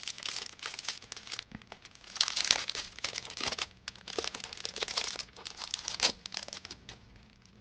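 Packaging of a dice pack being handled and unwrapped: irregular crinkling in clusters, dying away near the end.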